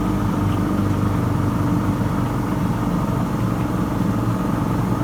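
Oil-injected two-stroke 1996 Johnson 40 hp outboard motor running at a steady idle, warm.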